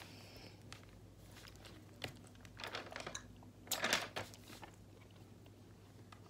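Close handling noises: a sharp click about two seconds in, then several short rustling scrapes, the loudest about four seconds in.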